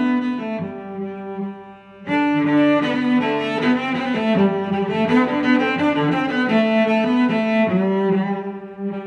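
Background instrumental music of held, layered notes in a string-like sound. It dips briefly about two seconds in, then comes back fuller.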